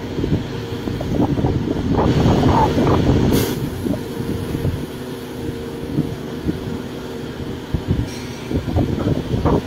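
Caterpillar 336 hydraulic excavator's diesel engine running under load as its bucket digs into earth and rock, with scraping, knocking and clanking. It is loudest a couple of seconds in.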